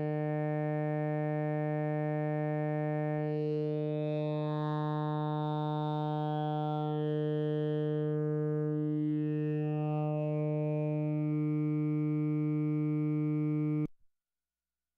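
Eurorack synthesizer oscillator holding a single steady note, rich in harmonics, its tone colour slowly shifting as different overtones swell and fade. It cuts off suddenly near the end.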